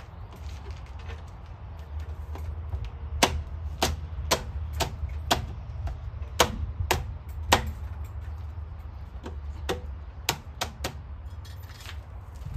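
A series of about a dozen sharp clicks, irregularly spaced, starting a few seconds in and stopping near the end, over a steady low rumble.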